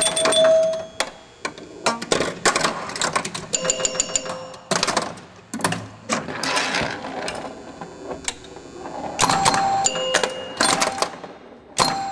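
Pinball machine in play: a rapid, irregular run of mechanical clacks and knocks, with short bell-like dings now and then.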